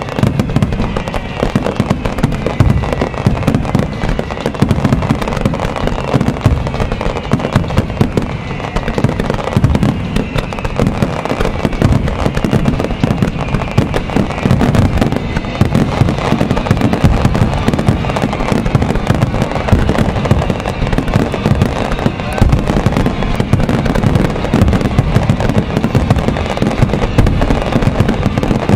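A starmine fireworks barrage bursts in rapid, unbroken succession, with many shells exploding at once. Show music plays beneath it.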